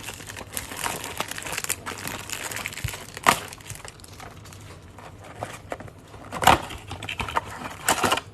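Plastic wrap crinkling and rustling as a box of hockey cards is opened and handled, with sharper crackles about three seconds in and again about six and a half seconds in.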